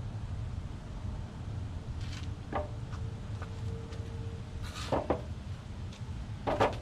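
Plywood box pieces being handled and set together, giving a few light wooden knocks and clatters, the sharpest about two thirds of the way through and near the end, over a steady low hum.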